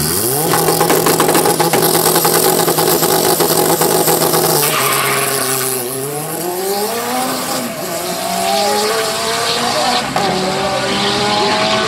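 Turbocharged first-generation Volkswagen Gol drag car holding its engine at steady high revs on the start line with a rapid crackle. About five seconds in it launches and accelerates away through the gears, the engine note climbing in repeated rising sweeps.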